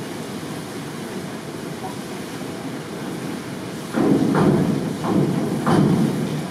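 Steady hum of an indoor pool hall. About two-thirds in, a diving springboard takes a thump, then knocks and rattles in a string of hits about half a second apart as the diver hurdles and springs off it.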